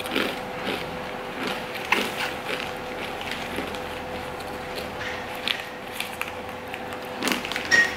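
Crisp rice crackers being crunched and chewed, in scattered short crunches, with a crinkle of the snack's plastic bag as another cracker is taken out.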